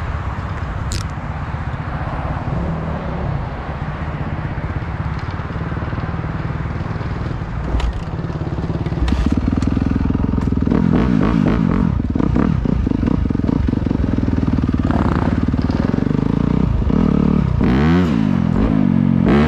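Yamaha dirt bike engine running under a steady hiss, growing louder from about nine seconds in as the bike moves off, with the revs rising and falling near the end.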